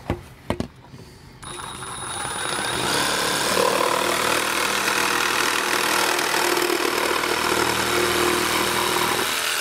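Compact cordless reciprocating saw running and cutting through a 2-inch PVC pipe, starting about a second and a half in and stopping suddenly near the end. A couple of short knocks come before it starts.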